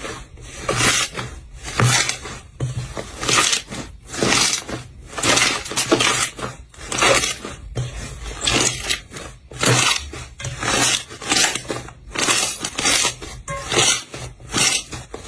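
Slime being squeezed and pressed by hand: a run of short, crackly presses, roughly one a second and unevenly spaced.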